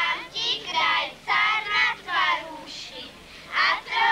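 Children singing together in short phrases, with a brief pause about two and a half seconds in.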